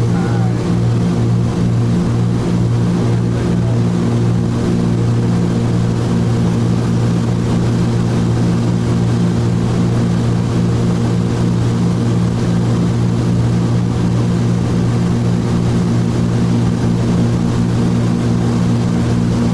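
Cabin drone of a Cessna T303 Crusader's twin turbocharged six-cylinder piston engines and propellers in flight: a loud, steady hum made of several low tones over a rushing noise, unchanging throughout.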